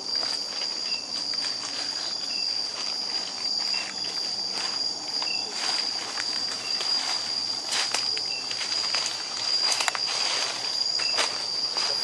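A steady, high-pitched chorus of night insects trilling, with footsteps and the brushing of leaves and branches as people push through undergrowth.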